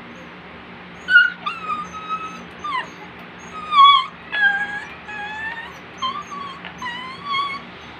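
Puppy shut in a wire cage whimpering: a string of short, high whines, some sliding down in pitch, from about a second in until near the end.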